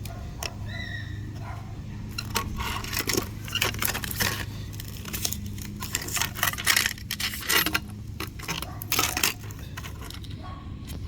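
Small plastic and metal parts of a disassembled Amazon Kindle clicking and rattling as they are handled, an irregular run of light clicks over a steady low hum.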